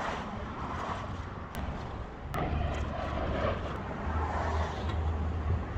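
Low, steady rumble of street traffic that swells about halfway through, with a few sharp clicks and a rustle of heavy fabric as a car cover is dragged off a parked car.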